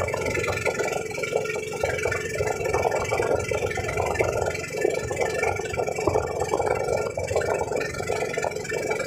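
Motorized outrigger boat's engine running steadily while underway, with a rough, irregular rush of water and air over it.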